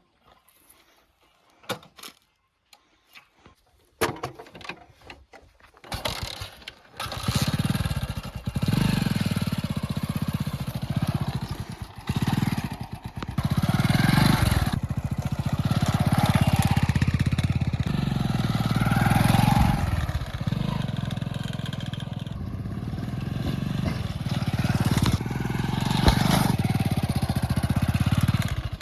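A vehicle engine starts about four seconds in, after a few faint clicks, and then runs loudly, its level rising and falling.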